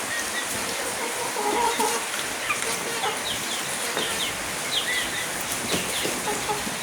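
Chickens clucking, with short, high, falling chirps scattered throughout.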